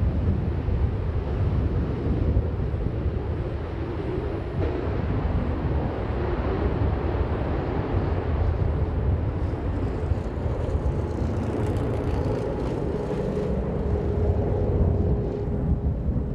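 Jet fighter's engine running at full power on the takeoff roll with the afterburner lit: a steady, heavy rumble.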